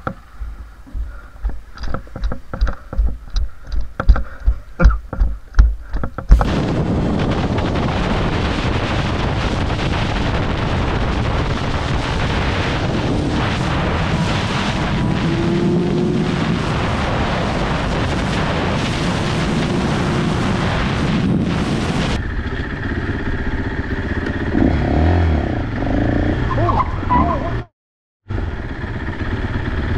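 Rhythmic thumps, about three a second, as a gloved rider pushes a minivan by hand. Then the steady rush of wind and engine noise from a sport motorcycle at highway speed, followed by an orange dirt bike's engine running on a city street, with the sound cutting out for a moment near the end.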